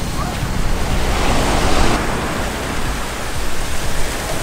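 Steady rushing water noise with no distinct strokes or tones, swelling between about one and two seconds in.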